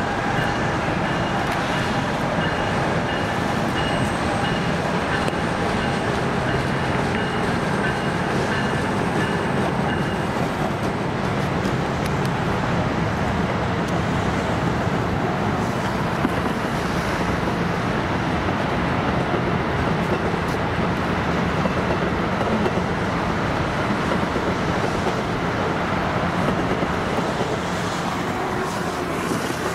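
NJ Transit ALP-45DP locomotive and bilevel coaches rolling past with a steady rumble of wheels and machinery. A thin whine is heard for about the first ten seconds, then fades as the locomotive moves away, leaving the steady rumble of the passing cars.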